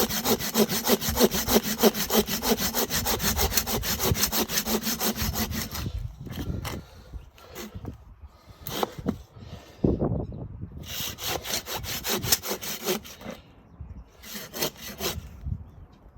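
Mossy Oak folding pruning saw cutting through a block of firewood. For about six seconds it saws in fast, even back-and-forth strokes, then goes on in shorter, broken runs of strokes with pauses between them.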